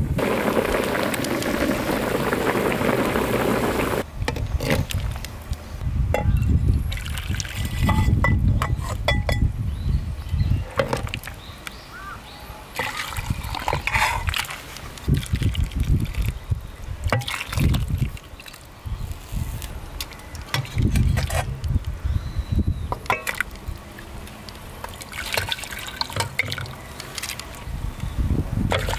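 Beef short rib broth at a rolling boil in a cast-iron cauldron, a dense steady bubbling that cuts off about four seconds in. Then broth is ladled and poured from the cauldron into earthenware bowls, with splashing pours and clinks of the metal ladle.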